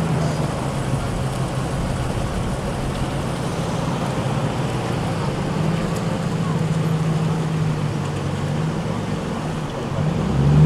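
V8 muscle car engine idling steadily with a low, even burble, briefly getting louder near the end as if blipped.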